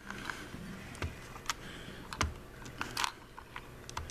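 Irregular small plastic clicks and taps as a replacement fuse is pushed into the fuse holder of a 24-volt ride-on toy battery, about ten in all, the loudest about three seconds in.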